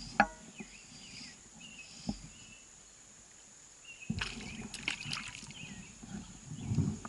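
Lakeside ambience: a steady high insect drone with scattered bird chirps. Over it come a click and a knock, then from about four seconds in, clattering and water sloshing against a small boat.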